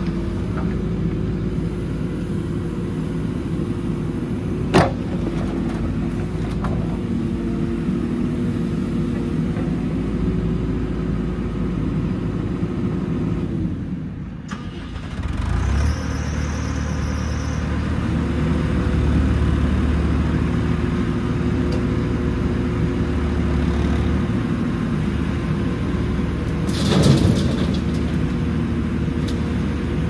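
JCB 4CX backhoe loader's diesel engine running steadily under hydraulic load as the backhoe arm digs and swings. The engine note changes with load and drops briefly about halfway. A sharp click comes about five seconds in and a short loud knock near the end.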